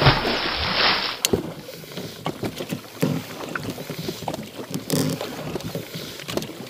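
Oars rowing an inflatable boat: a stroke about every two seconds, with knocks and short creaks from the oars in their locks and water splashing. A loud rush of noise fills the first second.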